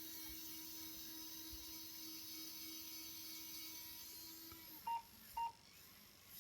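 Small electric motor in an RC model excavator running with a faint steady whine, cutting out near the end, followed by two short high blips.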